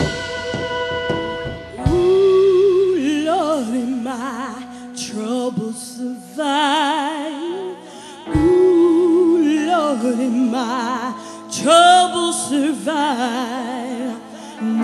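A woman's gospel singing, live, sliding through long wordless notes with a wide vibrato over held backing chords; the voice comes in about two seconds in as the band's sound dies away.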